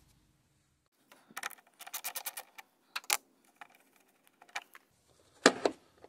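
A run of quick, light clicks and ticks, with a sharper single click about three seconds in and a short, louder knock or sound near the end.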